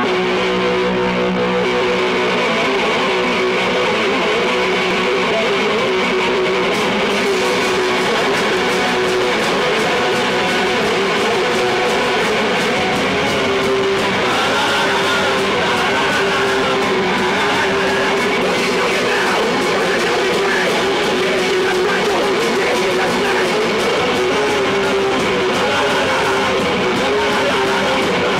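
Punk band playing live: loud, distorted electric guitar with bass and drums, running without a break.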